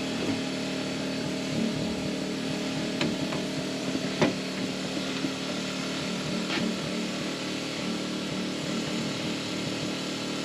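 A small engine running with a steady hum, and three sharp knocks over it, the loudest about four seconds in.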